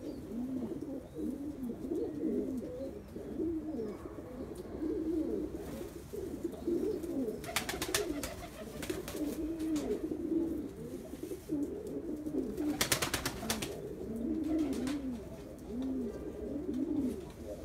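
A flock of domestic pigeons cooing continuously, many overlapping rising-and-falling coos. Twice, about eight and thirteen seconds in, a short burst of rapid wing flapping as a pigeon flutters up.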